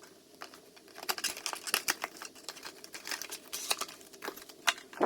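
The packaging of a teeth-whitening kit being opened and handled: continuous crinkling and rustling with many small clicks, and a sharper snap near the end.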